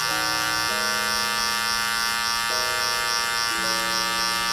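Gamma+ Rebel hair clipper running with a steady buzzing hum as its open-lever blade cuts a guideline into the hair at the sideburn.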